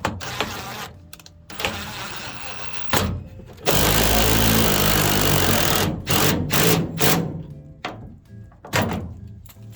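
A power tool runs in one loud burst of about two seconds, with knocks and clunks of work on either side and music playing in the background.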